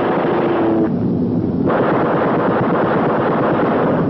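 Air-battle sound effects: a steady aircraft engine drone under two long bursts of rapid gunfire. The first burst cuts off about a second in and the second starts sharply a little under two seconds in.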